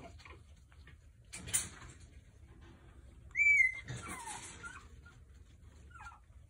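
Young French bulldog puppy giving a brief high squeal about three seconds in, followed by a whine that falls in pitch. A short rustling noise comes a couple of seconds earlier.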